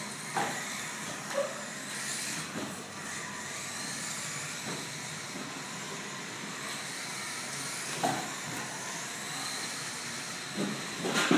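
Losi RC sprint cars running on a concrete floor: a steady hiss of motors and tyres with faint rising and falling whines, and a few short knocks.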